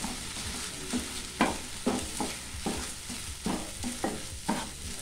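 Wooden spatula stirring and scraping foxtail millet and moong dal around a nonstick kadai as they roast in ghee, a scrape about every half second over a light steady hiss. The grains are being roasted until fragrant, before they are cooked.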